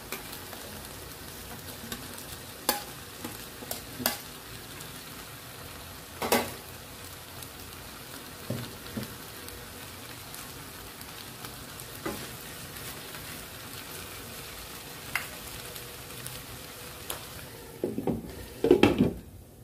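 Stir-fried noodles and vegetables sizzling in a wok, with scattered light clicks as shredded cabbage and other vegetables are dropped in. Near the end a glass lid is set on the wok with a few loud clatters, and the sizzle is muffled under it.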